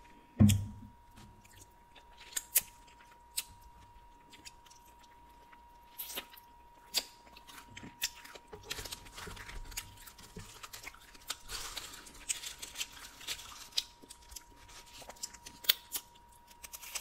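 Close-miked eating sounds of a store-bought pizza: crisp crunching, chewing and sharp mouth clicks in irregular runs. A single thump about half a second in.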